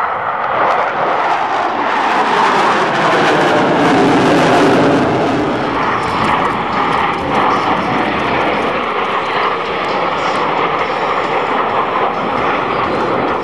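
Jet roar from four Blue Angels F/A-18 Hornets, with General Electric F404 turbofans, flying past in formation. The roar is loudest about four seconds in and falls in pitch as the formation passes, then carries on with a steady high tone in it.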